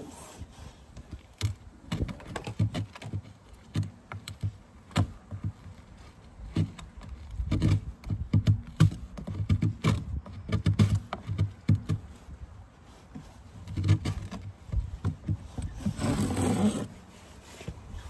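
Gloved hands and a metal hive tool working inside an empty wooden hive box: irregular knocks, clicks and low thuds, then a scrape lasting about a second near the end as the tool works at the upper corner.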